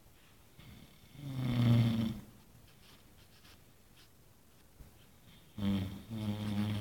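A man snoring loudly: two deep snores, the first about a second in and a longer one near the end.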